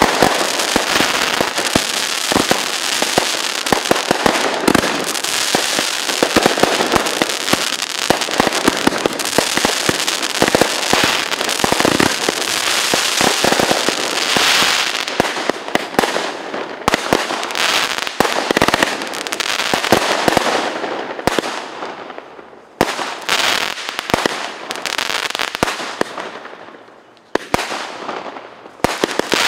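Fireworks: a dense, continuous crackling and popping of many bangs at once. In the last third it thins out into separate loud bangs, each followed by fading crackle.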